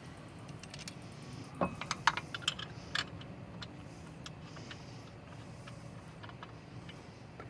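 Light metallic clicks and clinks of lug nuts and hand tools being handled as a wheel is refitted onto its studs. The clicks come in a cluster between about one and a half and three seconds in, then a few scattered ones.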